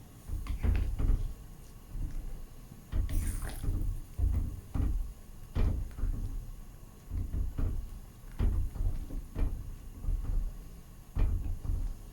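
Pot of coconut-milk gulai cooking on the stove: a run of irregular low knocks and splashes from the pot, one every half-second to a second.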